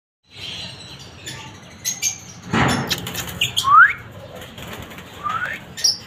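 Caged parrots calling: two short whistles that slide upward in pitch, the first the louder, with a brief flutter of wings before them and scattered sharp clicks and scratches.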